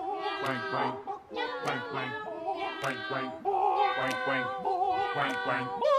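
Music with a high singing voice that wavers with vibrato over repeating low bass notes.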